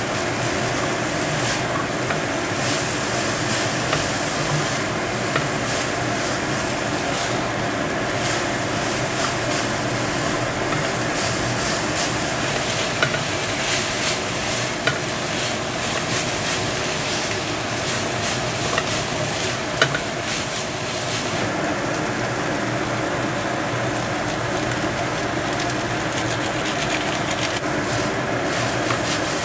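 Fern shoots stir-frying in hot oil in a pan: steady sizzling with frequent short scrapes and clicks of a spatula stirring. The cooker hood fan runs underneath.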